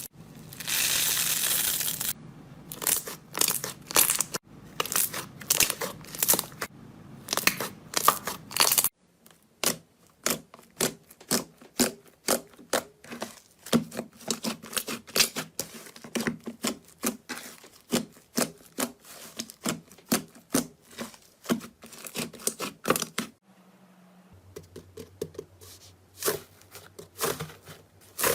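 Slime being squeezed and pressed by hand: many quick crackles and pops, in a few short clips one after another. The first two seconds are a steady rush of noise, and the last clip is sparser, with a low hum under it.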